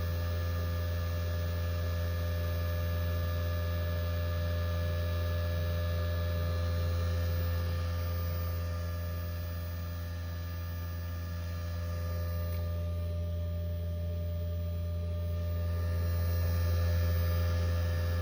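Steady electrical hum from solar power equipment: a strong low drone with several fainter steady higher tones, dipping slightly in level about halfway and swelling again near the end. It is an abnormal noise from the equipment.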